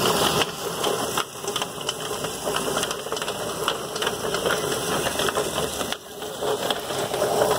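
Drum-style poultry plucker running, its spinning tub of rubber fingers rattling and clattering steadily as it plucks chickens.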